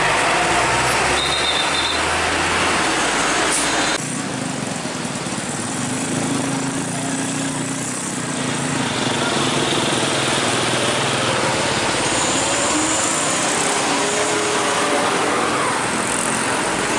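Heavy trucks' diesel engines and road traffic: a Hino Ranger truck running past close by, then, after an abrupt change about four seconds in, trucks and motorbikes running and moving off.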